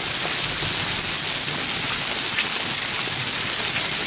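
Hail a little under half an inch across pelting down in a dense, steady hiss, with a few sharper individual hits standing out.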